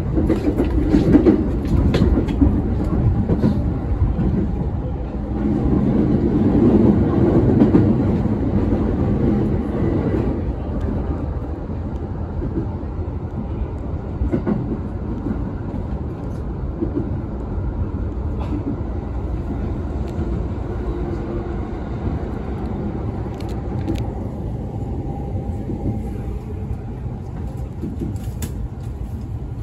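Commuter electric train running, heard from inside the front car: a steady rumble of wheels on rail with sharp clicks as it crosses points, the sound easing down as the train slows into a station platform.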